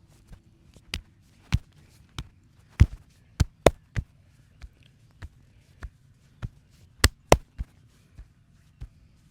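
A massage: a run of sharp hand slaps and taps on the body, about two a second and unevenly loud, with the hardest strikes about three and seven seconds in.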